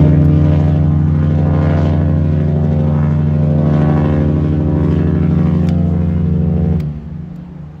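A cruise ship's horn, on the Adventure of the Seas, sounding one long, loud, deep blast of about seven seconds that stops abruptly near the end.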